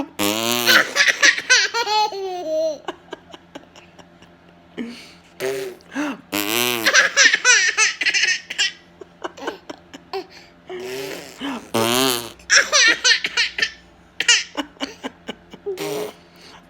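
Baby laughing in repeated fits, each set off by a short blown raspberry (lip fart) noise from an adult; the raspberry-and-laughter round comes several times.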